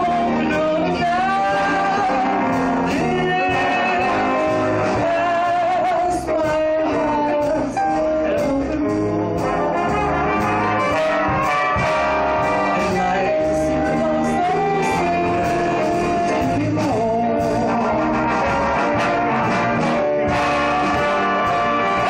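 Live band music: a woman singing into a microphone with a saxophone, drums and band behind her, heard through the room.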